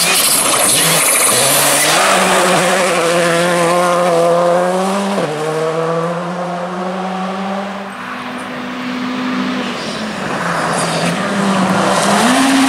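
Skoda Fabia R5 rally car's turbocharged four-cylinder engine revving hard on gravel, with loose gravel spraying in the first couple of seconds. The revs climb, then drop sharply about five seconds in. The engine note fades in the middle and grows louder again near the end.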